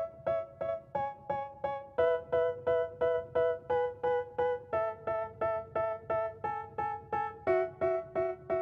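Background music: an instrumental break in a rap track, with a keyboard striking repeated chords about three times a second. The chord changes every few seconds.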